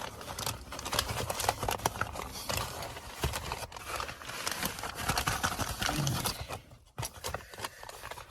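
A shipping package being torn open and handled: rustling, crackling packaging with many sharp clicks and taps, dying down after about six and a half seconds to a few scattered clicks.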